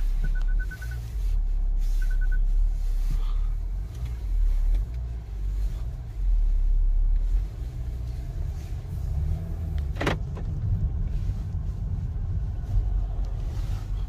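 Cabin sound of a BMW X4 3.0d, a straight-six diesel, on the move: a steady low engine and road rumble. A quick run of short high beeps sounds near the start, and a couple more about two seconds in.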